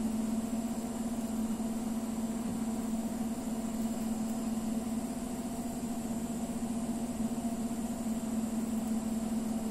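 Steady low machine hum: one constant tone with fainter higher tones over it, holding the same level throughout.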